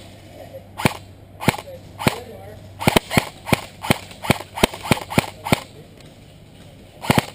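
Airsoft guns firing single shots: three spaced shots, then a quicker run of about a dozen at roughly four a second, then a pause and two more shots near the end.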